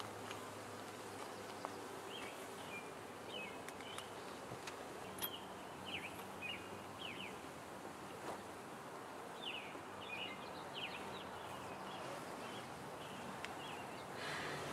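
Honeybees buzzing in a low, steady hum around an opened hive, over an even hiss. A bird chirps repeatedly throughout, and a few light knocks come from the wooden hive parts being handled.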